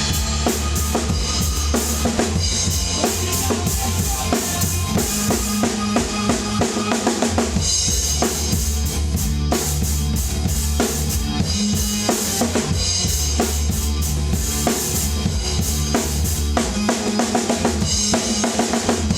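Drum kit played hard along to a recorded hard rock track: kick drum, snare and rimshots over steady distorted guitars and bass.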